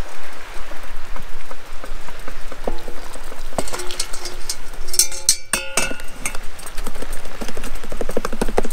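A utensil clinking, knocking and scraping in a metal camp cookpot, with a quick run of rhythmic stirring strokes near the end.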